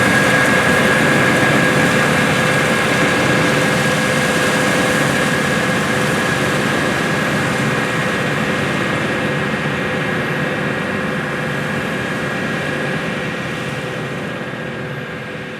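CLAAS Lexion 760 combine harvester running while harvesting wheat: a steady engine and threshing drone with a constant high whine. It slowly gets quieter and fades toward the end.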